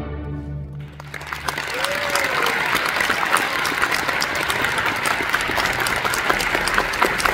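A youth orchestra's final chord rings and fades in the first second. About a second in, the audience breaks into dense, steady applause.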